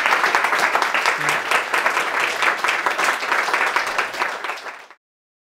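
Small audience applauding with hand claps at the close of a talk. The clapping tapers off and then cuts off abruptly about five seconds in.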